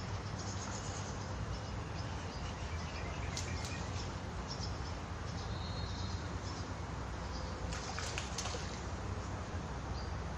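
Steady outdoor background noise with faint bird chirps, broken by a few short clicks about a third of the way in and again near the end.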